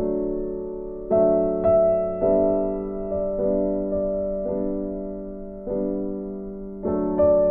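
Background music: gentle piano chords, a new chord struck about once a second and fading away.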